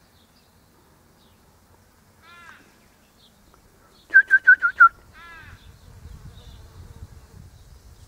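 A bird calling: a quick run of five loud, short whistled notes, about six a second, with a fainter arching call just before and just after.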